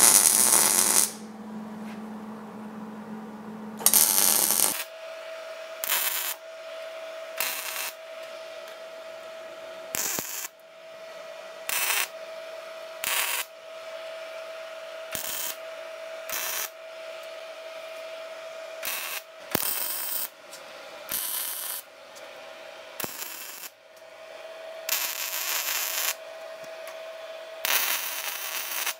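MIG welder laying a series of short stitch welds, each a second or so of arc crackle with gaps between, about fifteen in all, joining a steel hydro boost mount ring to a sheet-steel firewall panel. The welds are kept short to control heat and avoid warping the panel across big gaps. A steady hum runs underneath from about five seconds in.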